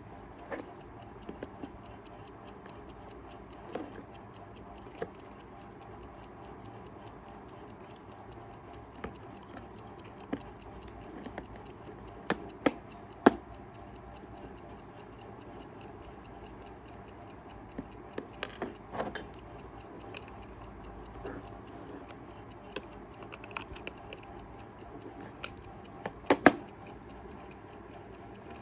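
Mechanical movement of a Kaiser 4 Rubis travel alarm clock ticking steadily, with a few louder sharp knocks and clicks around halfway through and near the end.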